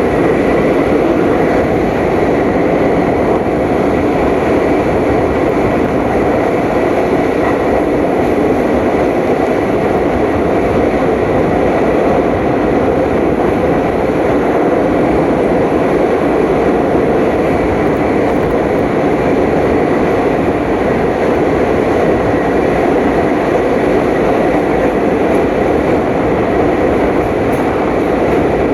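A moving passenger train running steadily, with a continuous rumbling, rattling noise of wheels and carriage that stays even throughout.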